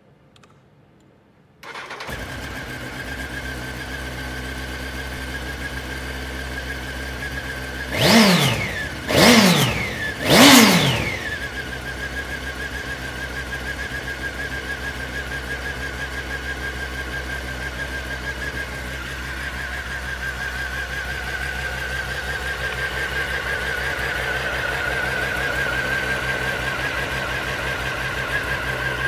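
Honda CBR900RR Fireblade's inline-four engine starting cold, catching about two seconds in. It is blipped three times in quick succession, each rev rising and falling away, and then settles into a steady idle with its exhaust steaming.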